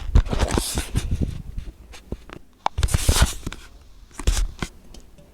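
Close rustling and scraping with clicks and low thumps, in three bursts: a long one at the start, another about three seconds in, and a short one a little after.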